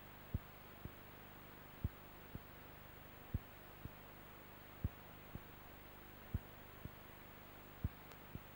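A faint steady low hum, with a pair of low thumps repeating about every one and a half seconds, the first strong and the second weaker, like a heartbeat.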